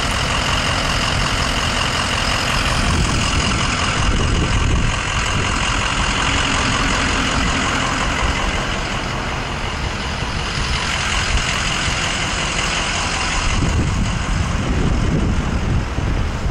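Fire truck's diesel engine idling steadily.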